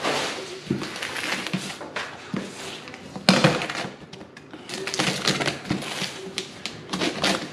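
Cardboard shipping box being opened by hand: flaps pulled back and paper and plastic packing liner rustling and crinkling, with a sharp, loud crackle about three seconds in.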